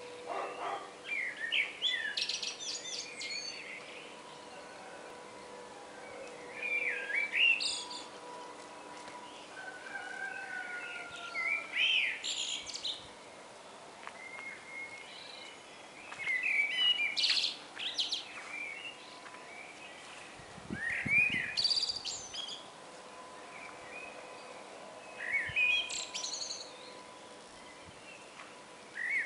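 Common blackbird singing in separate phrases about every four to five seconds. Each phrase is a fluting warble that ends in a higher twitter.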